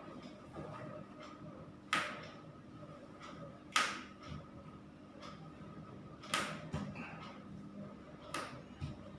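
Four sharp clicks or knocks about two seconds apart, with a few fainter ticks between them, over a faint steady hum.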